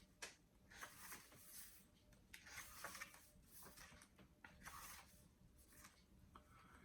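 Faint, intermittent paper rustling and soft clicks of a hardback book being handled and its pages leafed through.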